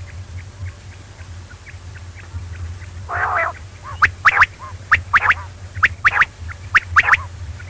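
Quail calling: sharp paired call notes repeated about once a second from about four seconds in, after fainter notes and a buzzy call, over a steady low hum.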